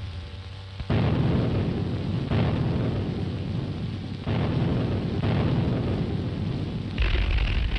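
Artillery firing and shells bursting: about five heavy booms a second or two apart, each followed by a long rumble. Near the end a louder, steadier rumble sets in.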